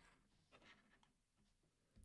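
Near silence: room tone, with one faint brief sound just over half a second in.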